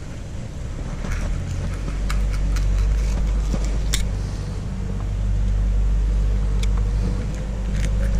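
A steady low rumble of an engine running, with scattered light clicks and scrapes of a fillet knife working through a pompano on a plastic cleaning table.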